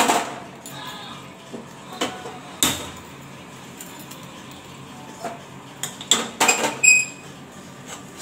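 Steel kadhai and utensils clanking against a gas stove as the pan is handled and set back on the burner: a knock at the start, another about two and a half seconds in, and a cluster of clanks a little before the end, the last one ringing briefly.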